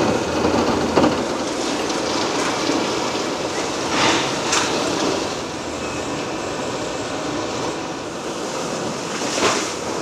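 Liebherr R 980 demolition excavator at work, a continuous rumble and clatter of breaking concrete and falling debris, with sharper cracks about a second in, twice around four seconds in, and near the end.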